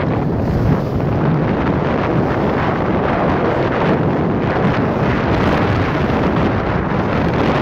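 Loud, steady wind buffeting the microphone over the rush of water from a rigid inflatable boat running at speed over open sea.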